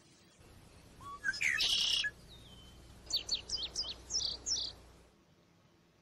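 Northern waterthrush singing: a rapid phrase of sharp high notes about a second in, a short thin whistle, then a second phrase of quick down-slurred notes.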